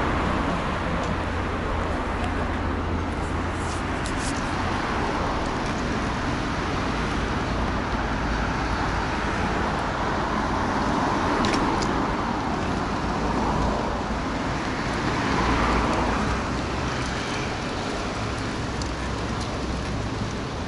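Steady road noise while riding: low wind rumble on the microphone under a hiss of traffic, with passing cars swelling up a few times.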